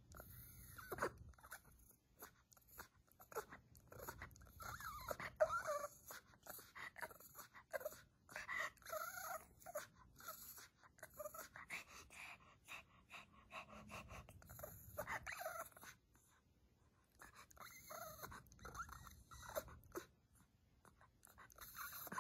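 Shih Tzu "talking": a string of short vocalizations that bend up and down in pitch, on and off, with a brief lull about three-quarters of the way through. The dog is vocalizing to ask for a treat.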